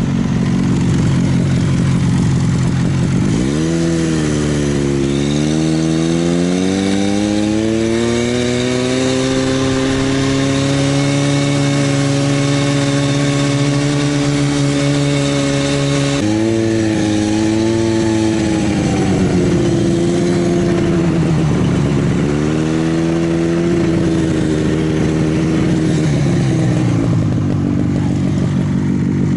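Buran snowmobile's two-stroke engine running under way, its pitch climbing as the throttle opens a few seconds in and holding steady. It drops suddenly about halfway, dips and climbs again, then falls away near the end.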